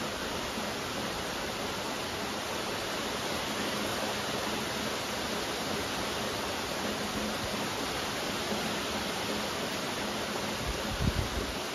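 Steady rain, an even hiss with no single drops standing out. Near the end, a brief low rumble with two thumps.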